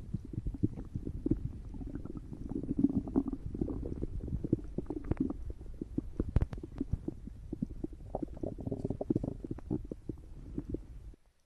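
Human stomach growling and gurgling: a continuous run of low rumbles packed with quick bubbly pops, which cuts off suddenly near the end.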